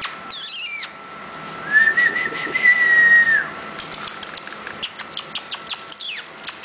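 Puppies whimpering and yelping in high-pitched, wavering cries, with one long steady high whine in the middle and a falling yelp near the end. A run of sharp clicks fills the last few seconds.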